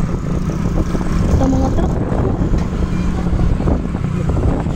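Steady low rumble of a moving road vehicle heard from on board: engine and road noise, with wind on the microphone.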